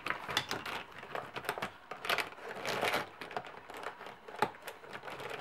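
Handling of plastic Copic alcohol markers on a sticker sheet and cutting mat: irregular rustling and scraping strokes with a few sharp clicks as a marker is set down and another picked up.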